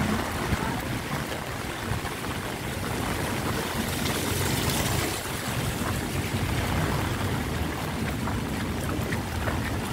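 Steady rain falling on a wet street and on umbrellas and tarps during a typhoon, an even hiss of water.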